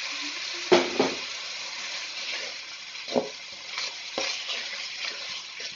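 Sliced onions and spices sizzling in oil and a splash of water in a metal kadai, being browned (kosha), while a spatula stirs and scrapes through them, knocking against the pan several times, loudest about a second in.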